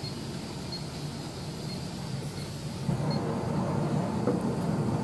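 Steady low mechanical rumble that gets louder about three seconds in.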